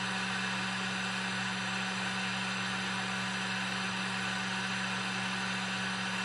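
Heat gun running steadily, its fan whirring with a constant airy hiss and a low hum, heating metal for pouring into the mold.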